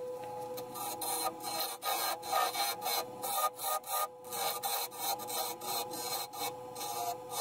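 Wood lathe running with a steady hum while a hand-held turning tool makes many short, irregular cuts into the spinning segmented bubinga-and-ash goblet blank, each cut a brief scraping hiss.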